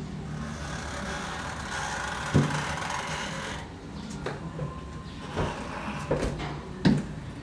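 Footsteps and knocks of people moving about a narrow stairwell: a few dull thuds, the loudest about two and a half seconds in and near the end, over a steady low hum.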